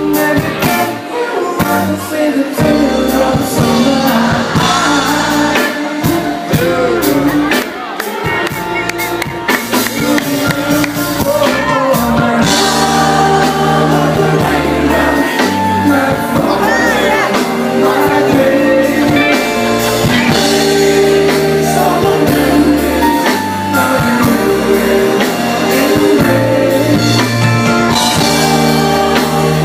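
Live soul band playing with a lead singer and backing vocals over drums, bass and a steady beat.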